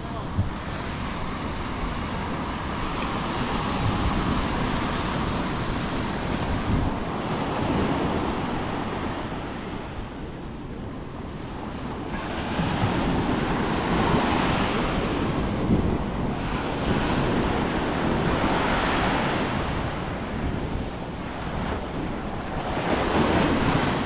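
Atlantic surf breaking and washing up over the sand in repeated swells, easing off around the middle and building again in several surges toward the end.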